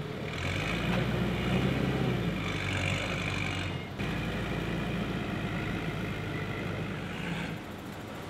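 Engine of a Heli forklift running while it lifts bulb crates off a trailer. It is louder, with a higher whine, for the first few seconds. The sound changes abruptly about four seconds in.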